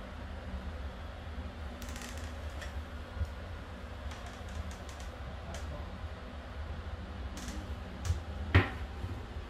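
Scattered light clicks and taps, most of them between about two and six seconds in, with a sharper knock near the end, over a steady low hum.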